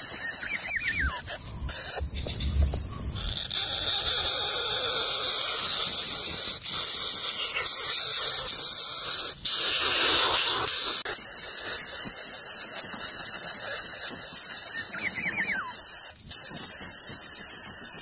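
Greater coucal nestlings begging with a loud, continuous hissing squeal, broken only by a few brief pauses.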